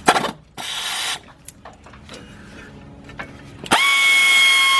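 Power ratchet with a 12 mm socket running a brake caliper's lower mounting bolt out: a short burst about half a second in, then near the end a longer run at a steady, even whine.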